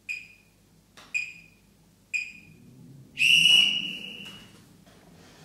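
Electronic interval timer beeping: three short beeps about a second apart, then one longer, louder beep, the countdown that signals the end of a timed hold.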